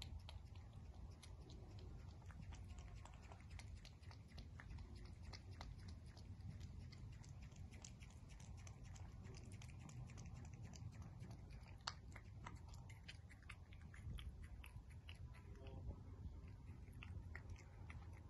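A cat eating wet food chunks from a bowl: a quiet, irregular run of small wet chewing clicks and smacks.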